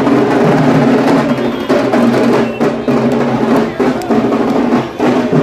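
Loud celebratory drumming with music, rapid drum beats over a dense low thrum.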